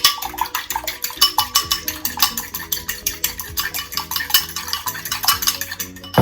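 An egg being whisked in a bowl: quick, regular clicking strokes, about eight or nine a second, with background music underneath.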